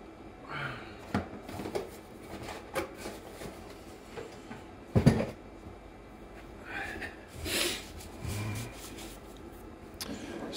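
Scattered light clicks and knocks of small parts being handled on a workbench, with one sharper knock about five seconds in and a brief rustle a couple of seconds later.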